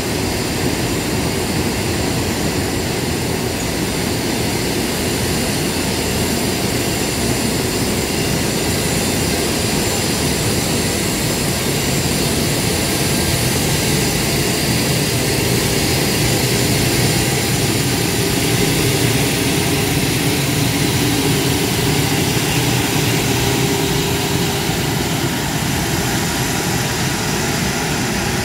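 JR Freight EF510 electric locomotive moving slowly past at close range, giving off a loud, steady mechanical whirring hum.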